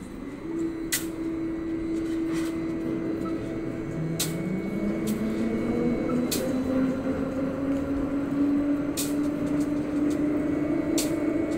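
Port crane's hoist machinery running with a steady whine while it lowers a load of steel rebar. A second tone rises in pitch from about four seconds in. Sharp metallic clicks come every second or two.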